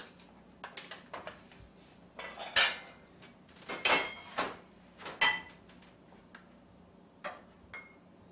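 Metal kitchen utensils and dishes clinking: a scatter of light taps and clicks, with three louder clinks that ring briefly, about two and a half, four and five seconds in.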